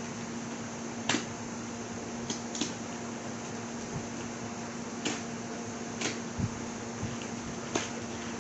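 Scattered light clicks and taps, the sound of a smartphone's retail box and packaging being handled, over a steady background hum and hiss. The sharpest click comes about a second in.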